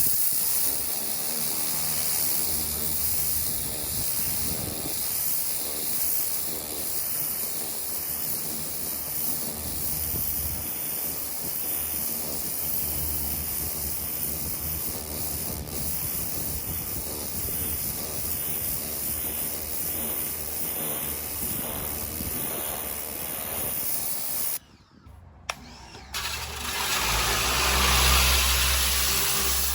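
Ryobi 1600 psi electric pressure washer running, its water jet hissing steadily against a fence along with the pump's hum. Near the end the spray cuts off for about a second, then starts again louder.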